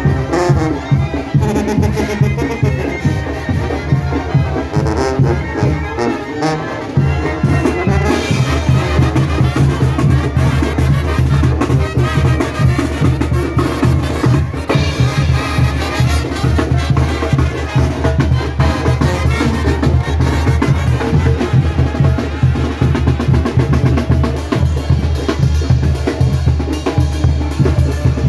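Mexican brass banda playing live: trumpets and trombones over bass and drums with a steady, fast beat. The low bass drops out briefly about six seconds in.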